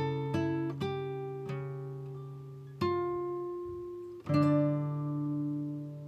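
Acoustic guitar music: single plucked notes and chords ringing out and fading, with a louder chord struck about halfway through and another past two-thirds.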